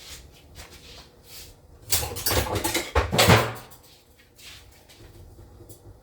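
A burst of clattering and knocking in a kitchen, starting about two seconds in and ending with a couple of heavy knocks, like a cupboard or door being handled.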